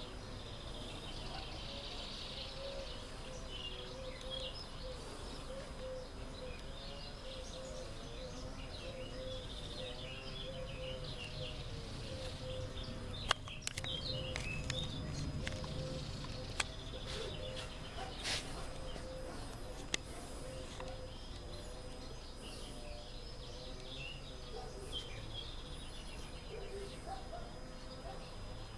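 Outdoor ambience with small birds chirping on and off over a steady low hum. A few sharp clicks come about halfway through.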